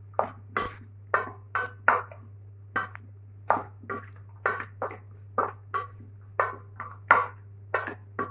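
Wet squelching and slapping of hands mixing boiled tripe with grated garlic and spices in a stainless steel bowl, about two to three short squishes a second, over a steady low electrical hum.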